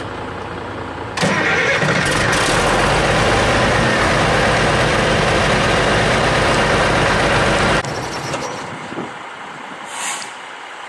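Diesel engine idling. About a second in, a loud steady rush of noise starts suddenly over it, holds for about six and a half seconds and cuts off sharply.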